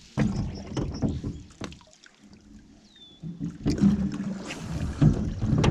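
Small-boat noise: water sloshing and knocks against the hull, in two rough stretches of a second or two each. A short high chirp sounds about three seconds in.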